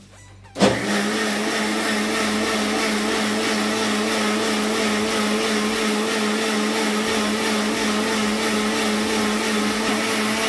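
Electric kitchen mixer-grinder starts with a brief loud surge about half a second in, then runs steadily with an even motor hum. It is grinding a wet masala paste of fried spices and coriander leaves fine.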